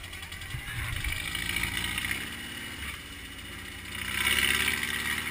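VW Baja Bug's air-cooled flat-four engine revving as the car pushes through mud, louder about a second in and again near the end, over a steady engine idle close by.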